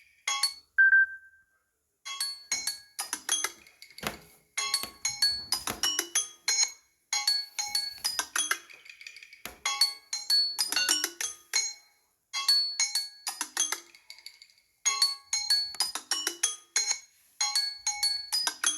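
A Samsung Galaxy Tab A 8.4 ringtone playing from the tablet's speaker: a quick melody of short ringing notes that comes in a phrase repeated about every two and a half seconds. Before it starts, the previous tone ends and a single short beep sounds about a second in.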